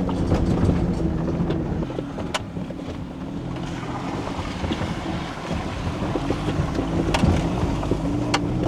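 Off-road vehicle's engine running steadily at low speed along a dirt two-track, with a few sharp clicks and knocks.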